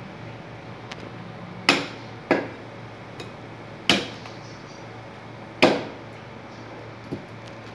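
Cleaver chopping through beef ribs on a round log chopping block: four sharp, loud chops at uneven intervals, then a lighter knock near the end.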